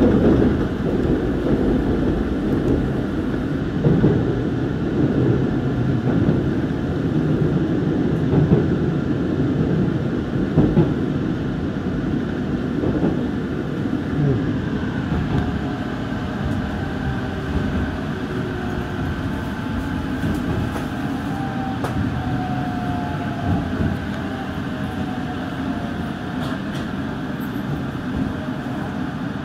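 JR Central 313 series electric multiple unit running into a station, heard from inside the leading car: wheels rumbling on the rails over the pointwork, easing off as the train slows. From about halfway in, a faint motor whine falls in pitch as it brakes toward the stop.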